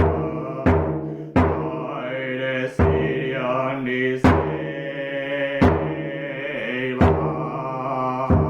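A hand drum beaten in a slow, steady pulse, about one stroke every second and a half, under a low, drawn-out chanted voice that slowly shifts in pitch.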